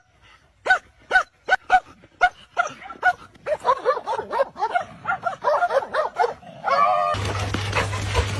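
A small dog yipping in short high calls, a few apart at first and then quicker and more crowded from about three seconds in. Near the end the sound cuts abruptly to a steady low hum with noise.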